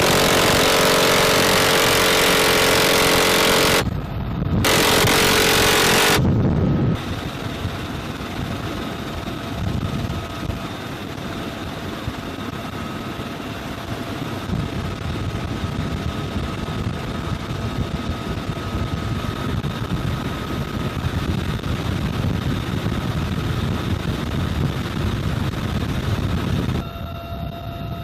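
UH-1Y Venom helicopter's twin turbine engines and rotor running, with a steady whine over the noise. In the first six seconds a much louder continuous noise sounds twice, about four seconds and then under two, each stopping abruptly.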